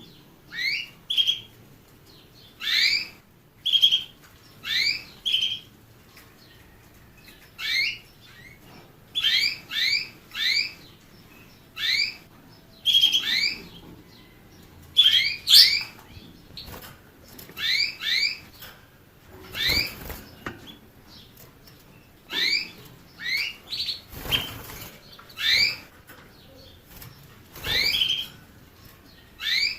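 A canary giving short, sharply rising call notes, one to three at a time, about every second. A few low thumps come in the second half.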